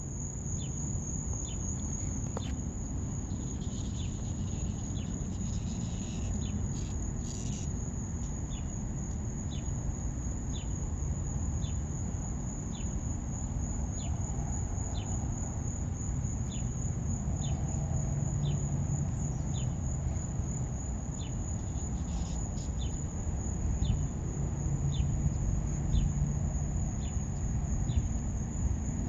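Insects singing outdoors: a steady high-pitched trill throughout, with a shorter, lower chirp repeating about once a second, over a low rumble.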